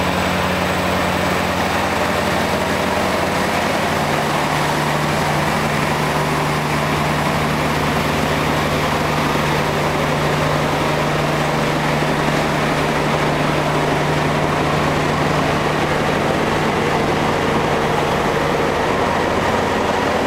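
Heavy-haulage trucks' diesel engines working hard under load, hauling an oversize float up a hill. The engine note is steady and steps down in pitch about four seconds in, then holds.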